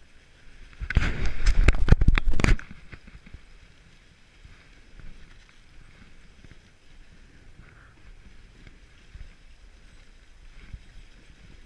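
Dog sled gliding over a snowy trail: a faint, steady hiss of the runners on snow. About a second in there is a loud scraping, crunching noise that lasts under two seconds.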